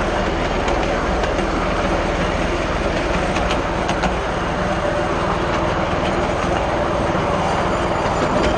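7¼ inch gauge miniature railway train running along the track, heard from a riding wagon: a steady rumble of wheels on rail with a few light clicks over the rail joints.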